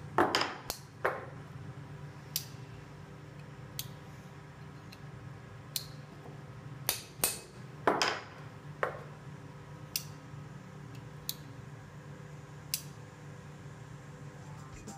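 Irregular sharp metal taps and clinks of tools and a Mercator folding knife against a steel bench vise, loudest about a second in and around eight seconds, over a steady low workshop hum.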